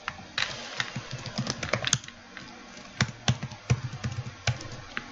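Typing on a computer keyboard: irregular key clicks, a quick run in the first two seconds, then single keystrokes spaced apart.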